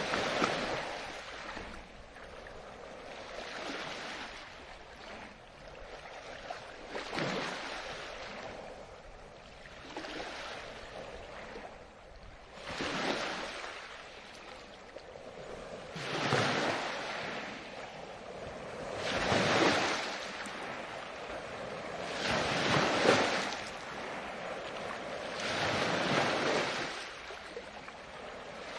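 Ocean waves breaking and washing on the shore, one surge every three to four seconds, the waves in the second half louder.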